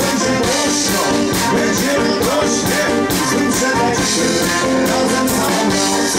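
Live pop-rock band playing a song, amplified through a stage PA: a male vocalist singing over a steady drum beat, bass and electric guitar.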